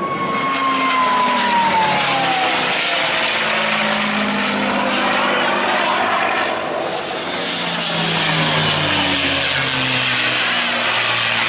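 Single-engine propeller aircraft flying past with a steady engine drone. Its engine note drops in pitch over the first couple of seconds as it passes.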